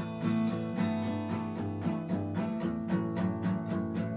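Acoustic guitar strummed in a steady rhythm, an instrumental break with no singing.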